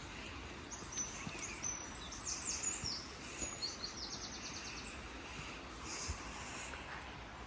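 A small songbird singing: a run of high chirps and quick slurred notes, then a short fast trill, over a steady background hiss.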